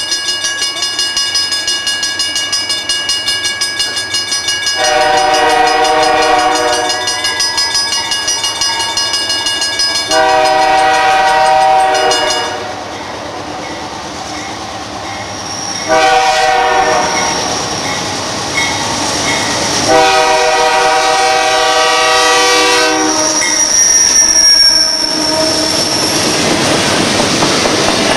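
Canadian Pacific Holiday Train locomotive's air horn sounding four blasts, the first and last longest, with a bell ringing quickly at the start. Near the end the train runs past with rolling wheel noise and a brief squeal.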